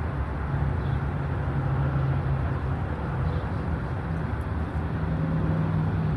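A low, steady droning hum over a rumbling background noise, drifting slightly in pitch, like distant engine noise.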